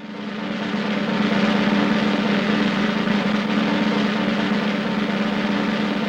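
Cartoon sound effect: a dense, steady rolling rattle with a low hum beneath it, swelling in over the first second and then holding level.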